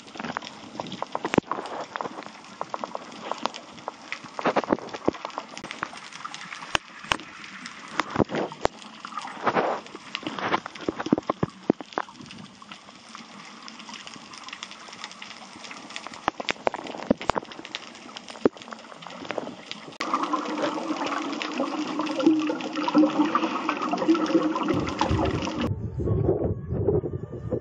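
Underwater sound through a snorkeler's waterproof camera: irregular crackling clicks and bubbling. About twenty seconds in it turns into a louder, fuller rush of water. Near the end it switches abruptly to splashing at the surface.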